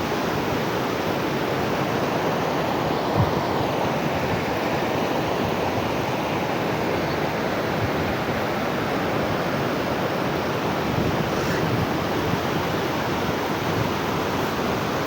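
Floodwater rushing, a steady even roar of water. There is one brief low thump about three seconds in.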